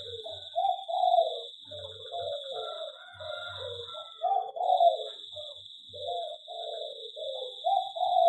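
Several zebra doves (perkutut) cooing in overlapping, repeated phrases, with a steady high-pitched whine underneath.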